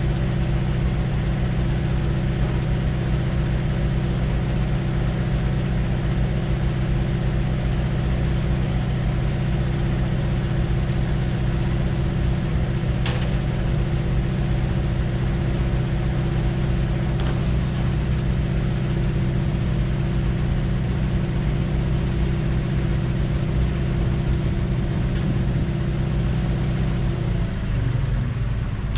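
1994 Ford E350 bucket van's engine idling with a steady hum; about a second and a half before the end the hum drops in pitch and wavers.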